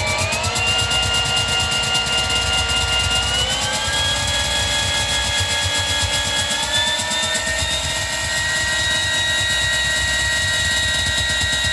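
Distorted modular synthesizer drone: a dense, fast-pulsing buzz with held resonator tones that glide up in pitch in steps, near the start, about 3.5 seconds in and about 7 seconds in, over a low pulse.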